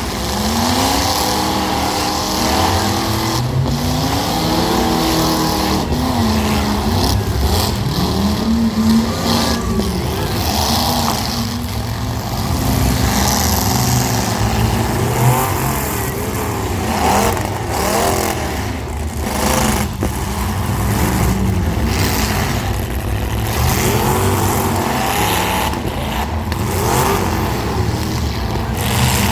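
Several small demolition-derby cars' engines revving up and down over one another, with short sharp bangs of impacts here and there.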